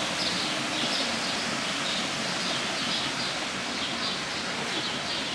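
Steady rushing of water spilling over a small stone weir, with faint high bird chirps repeating over it.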